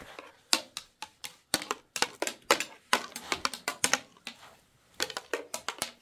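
A metal spoon clicking and knocking against a cooking pot while stirring: a quick, irregular run of sharp taps, about four or five a second, with a few short pauses.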